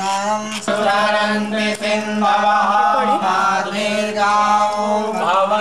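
Voices chanting a Hindu mantra in a steady, sing-song line over a held low drone.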